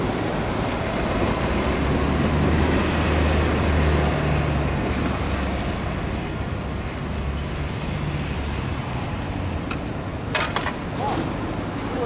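A road vehicle's engine running as it passes in traffic, a low hum that grows louder over the first few seconds and then fades. A few sharp clicks near the end.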